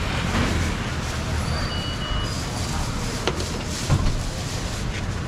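Busy street-market background noise: a steady low traffic rumble with a hum of distant voices, and two short sharp knocks a little past halfway.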